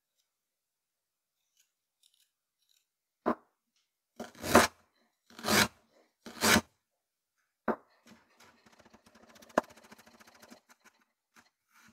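Chef's knife cutting fresh ginger root on a bamboo cutting board. A sharp tap is followed by three long slicing strokes about a second apart, then a fast run of light knife taps as the ginger is cut into thin strips.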